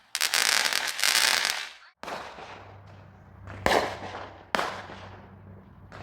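Fireworks: a dense run of crackling for about two seconds, then two loud bangs about a second apart, each fading out in a long echoing tail.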